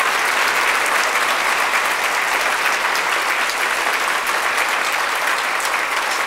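Large audience applauding steadily, a dense even clapping that holds at the same level throughout.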